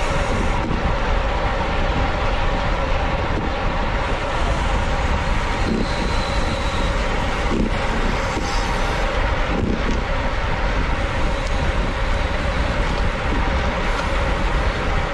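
Wind rushing over the microphone of a camera carried by a cyclist riding at speed, with a steady hum underneath. A few short knocks come through about six, seven and a half and nine and a half seconds in.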